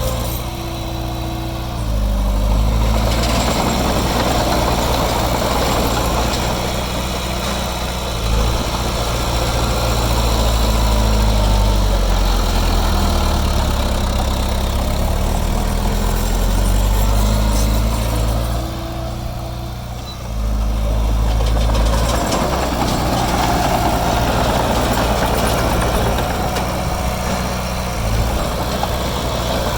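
Diesel engine of heavy earth-moving machinery working under varying load, its pitch rising and falling. The engine drops back briefly twice, once near the start and once about two-thirds of the way through, then picks up again.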